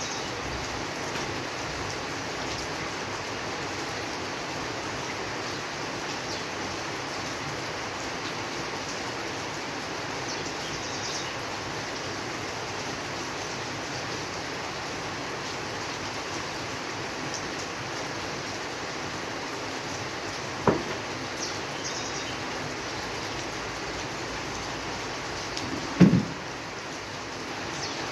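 Steady rain falling, an even hiss. Two short sharp knocks break through, one about three-quarters of the way in and a louder one near the end.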